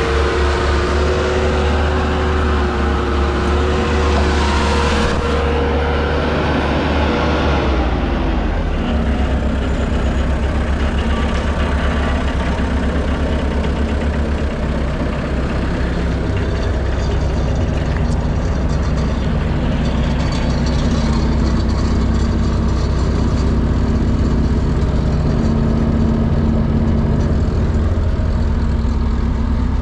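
Bobcat skid steer engine running steadily. For the first eight seconds a high whine sits over the engine, then glides down and stops, and the engine carries on at a steady lower note.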